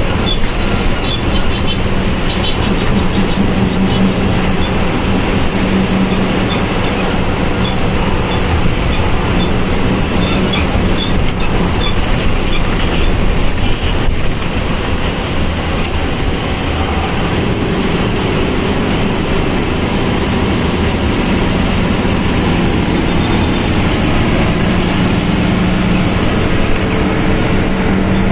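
Volkswagen Volksbus 17.230OD bus running steadily under way, heard from inside the bus: engine noise with a steady droning tone from the growling transmission, which grows stronger near the end.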